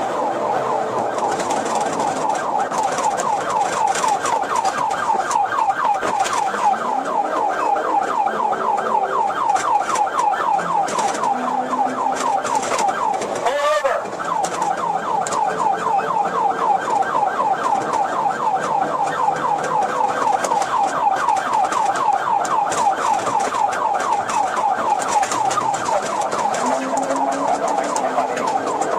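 Police car siren running in a fast yelp, a rapid rising-and-falling warble, during a high-speed pursuit. It breaks off with one falling swoop about fourteen seconds in, then resumes. The patrol car's engine can be heard faintly underneath.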